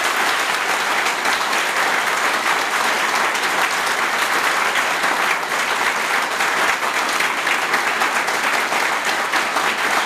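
Audience applauding: many hands clapping steadily and densely together.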